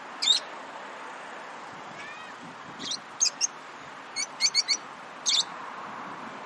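Lovebirds chirping: short, sharp, high chirps in small clusters, one just after the start, three close together around three seconds in, a quick run of four around four and a half seconds, and one more a second later, over a steady hiss.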